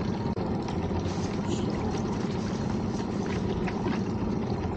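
Steady low rumble of wind and sea around a small open fishing boat, with a few faint ticks from the fishing gear.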